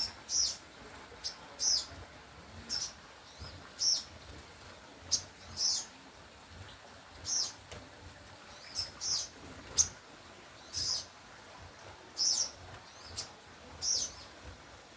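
A songbird singing energetically, giving short high chirps about every second or so, with a few sharp clicks in between.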